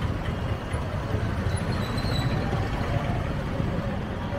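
Street ambience: a steady low rumble of traffic, with a faint high squeal or chirp about two seconds in.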